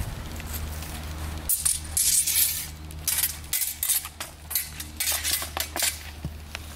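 Steel swords and metal bucklers clashing in sword-and-buckler sparring: a quick run of sharp metallic clinks and clangs from about a second and a half in until about six seconds in.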